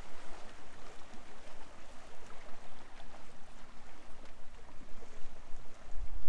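Water sloshing and lapping against a kayak's hull, with wind on the microphone that swells into a low rumble near the end.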